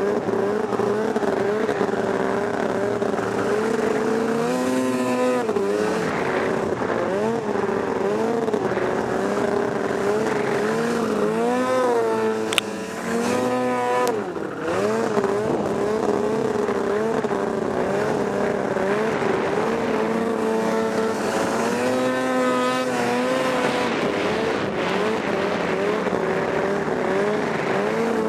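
Snowmobile engine running at trail speed, its pitch rising and falling as the throttle is eased and opened again, several times over. A single sharp click about halfway through.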